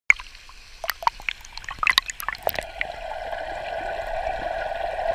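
Underwater sound picked up by a GoPro Hero4 in its waterproof housing: a flurry of sharp bubble pops and clicks for the first couple of seconds, then a steady, muffled underwater hiss.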